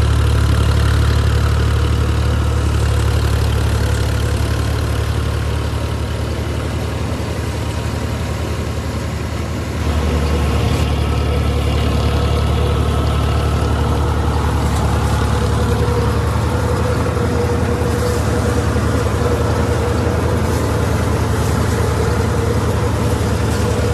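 Sonalika DI 42 RX tractor's diesel engine running steadily and loudly. It eases off slightly for a few seconds, then picks up sharply about ten seconds in.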